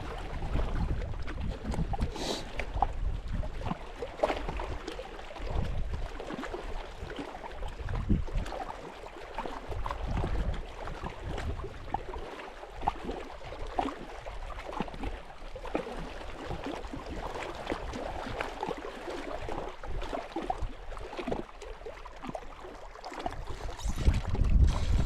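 Wind buffeting the microphone in uneven gusts, with scattered faint clicks and small knocks.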